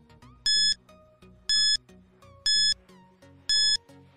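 Quiz countdown timer beeping once a second: four short, identical high-pitched beeps counting down, over faint background music.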